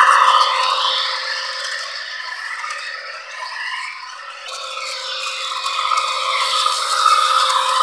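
Model diesel locomotive and intermodal train running past on toy track: wheels rattling and scraping on the rails with motor whir. It is loud at first, fades a couple of seconds in, then grows louder again toward the end.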